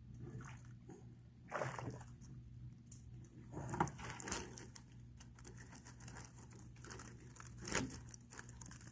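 Collapsible wire-mesh fish basket rattling and clinking as it is pulled up out of the water onto a wooden dock, with water splashing and dripping from it. Irregular rustles and clicks, with louder bursts about a second and a half in, around four seconds in and near the end.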